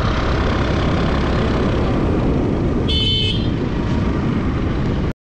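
Scooter running along at road speed with heavy wind rush on the microphone. About three seconds in, a brief high-pitched horn toot, and the sound drops out abruptly for a moment near the end.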